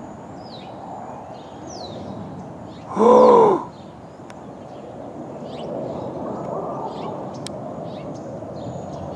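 Small birds chirping in short, high notes throughout, and one loud, harsh bird call about three seconds in that rises and falls in pitch and lasts under a second.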